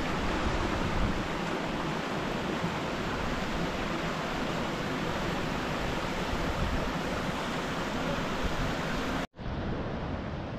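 Steady rushing wind with low buffeting on the microphone. It drops out for an instant about nine seconds in, then carries on duller.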